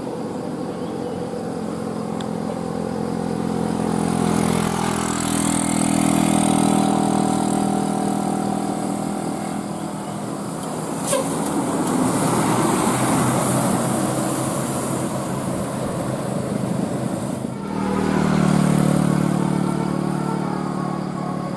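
Road vehicles passing close by, engines and tyres swelling and fading as each one goes by, with the engine pitch sliding down over the first few seconds. A single sharp click about eleven seconds in.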